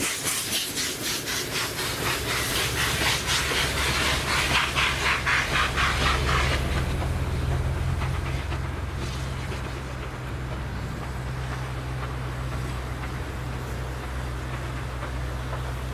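Steam-hauled passenger train running past and away: rapid, even beats from the working steam locomotives with the rumble of the train. About six seconds in the sharp beats stop, leaving a steady low rumble with a faint hiss.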